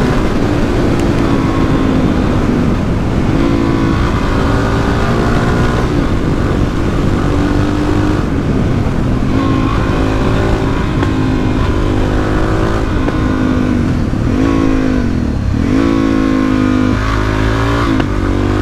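Suzuki DR-Z400SM supermoto's single-cylinder four-stroke engine pulling hard and shifting up repeatedly, its pitch climbing through each gear and dropping at each shift.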